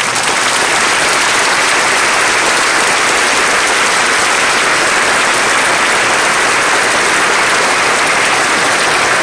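Audience applauding in a hangar, a steady dense round of clapping that starts abruptly and holds at full strength throughout.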